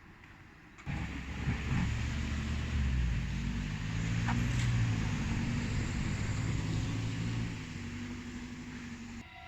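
A road vehicle's engine running close by, low and steady, cutting in suddenly about a second in and getting quieter near the end.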